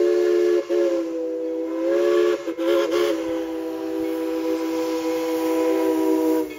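Chime steam whistle of steam locomotive No. 190 blowing one long multi-note blast. The chord breaks briefly about half a second in, wavers around the middle, and cuts off sharply at the end.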